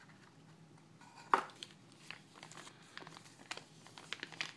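Clear plastic bag crinkling as a folding knife is worked out of it, with one sharp click a little over a second in and scattered small crackles after it.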